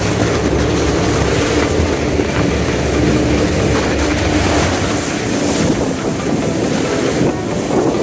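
Snowboards sliding over hard, packed snow: a steady scraping rush with a low rumble that eases off about five seconds in.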